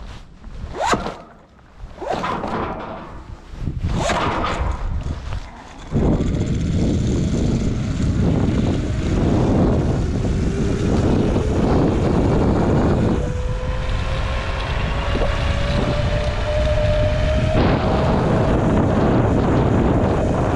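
Wind buffeting the camera microphone while moving fast down a road. It comes in gusts at first, then about six seconds in turns into a loud steady rush, with a faint whine rising slowly in pitch through the middle.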